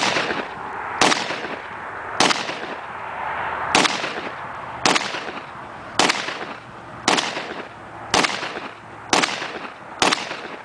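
Israeli Kareen 9mm pistol, a Browning Hi Power clone, firing about ten single shots at a steady pace of roughly one a second. Each shot is followed by a short echo.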